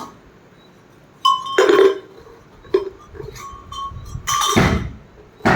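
Brass cow bells clanking, several irregular strikes with a ringing metallic tone between them. The first comes about a second in and the loudest near the end.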